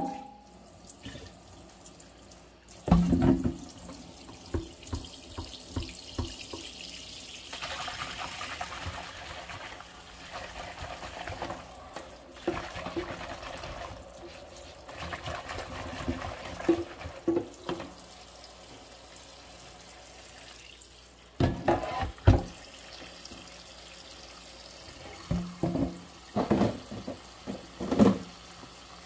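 Dishes washed by hand in a stainless steel sink of soapy water: water splashing and trickling while gloved hands handle the crockery. Sharp clinks and knocks of a mug, a bowl, a fork and a glass pot lid against each other and the sink come a few seconds in, again about two thirds through, and several times near the end.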